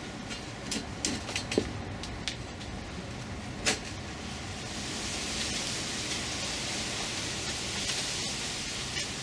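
Light clicks and knocks as a cargo trike's 3D-printed PLA double wishbone suspension and steering are worked by hand. A steady hiss comes in about five seconds in.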